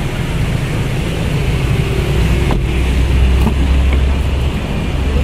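Steady low rumble of street traffic mixed with wind on the microphone, swelling from about two seconds in until near the end.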